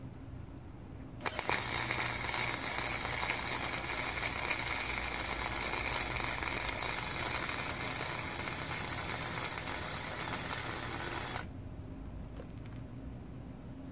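Wire-feed welder laying a weld on steel angle iron: a couple of short sputters as the arc strikes about a second in, then a steady hiss for about ten seconds that cuts off suddenly when the trigger is released.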